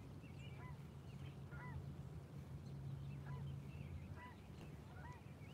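Geese honking, a string of short arched honks repeating throughout, over a steady low hum.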